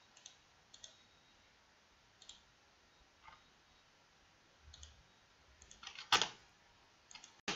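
Sparse, quiet clicks of a computer mouse and keyboard as windows are switched, with a louder click about six seconds in.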